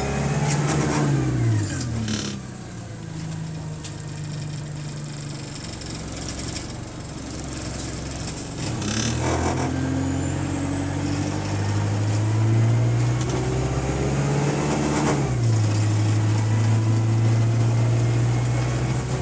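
Bus engine heard from on board, slowing down and easing to a lower steady note for several seconds, then pulling away with rising revs, a gear change about fifteen seconds in, and a steady run after it. A faint high whine rises and falls with the bus's speed.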